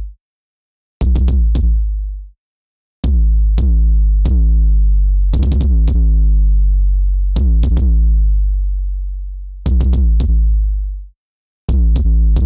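Synthesized 808-style kick drum from FabFilter Volcano 3, struck repeatedly, each hit a sharp click followed by a deep boom. The boom's length follows the linked decay/release control: short with silent gaps between hits at first, then a long sustained boom that carries on from hit to hit, then shorter again near the end.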